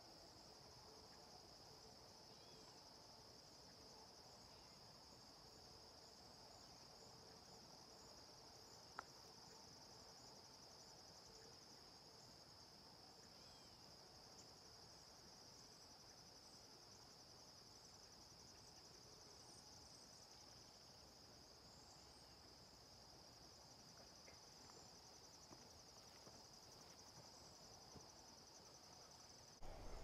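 Faint, steady insect chorus: an even, high-pitched trilling that never stops, with a single faint tick about nine seconds in.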